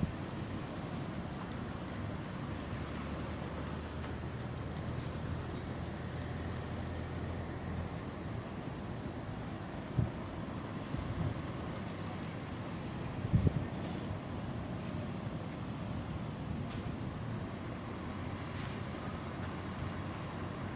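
Steady outdoor background noise with a low engine-like hum over the first several seconds and short, high chirps repeating irregularly. A few dull knocks come about halfway through.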